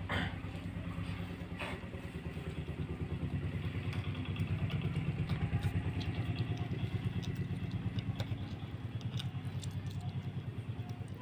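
An engine running steadily with a low, fast pulsing, growing a little louder midway and then easing. A couple of light clicks from hands working in a steel bowl come in the first two seconds.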